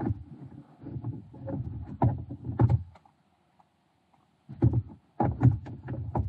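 Rustling and bumping with small clicks as a person shifts about on a sleeping pad, in two bouts of about three seconds and a second and a half with a short pause between.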